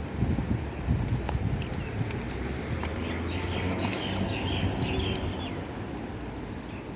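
A flock of domestic pigeons cooing in a low, continuous murmur, with scattered wing flaps.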